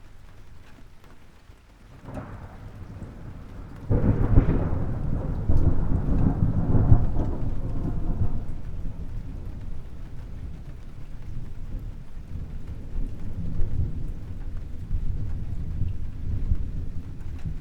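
Thunderclap during heavy rain: a rumble builds, then a sudden loud crack about four seconds in, which rolls on and slowly dies away into a lower rumble over the steady rain.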